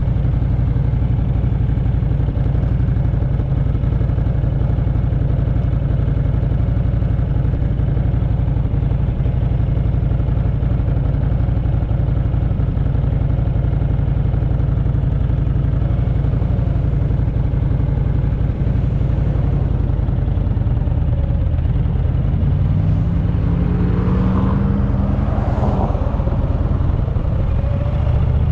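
Cruiser motorcycle engine idling steadily at a stop, then pulling away about 22 seconds in. The pitch rises as it accelerates, drops briefly at a gear change, and climbs again near the end.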